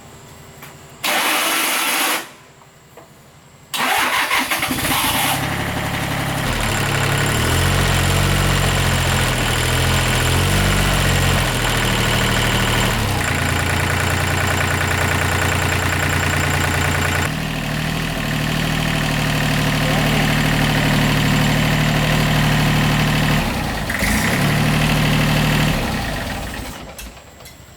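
Freshly restored agricultural machine engine being started, with a short first burst about a second in, then catching and running from about four seconds. Its speed steps up and down several times before it dies away near the end.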